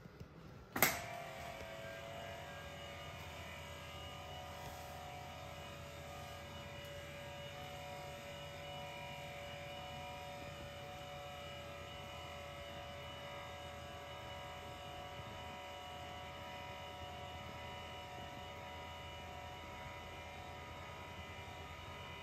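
Doming machine with a robot arm running: a click about a second in, then a steady electric whir with several held tones over a low hum.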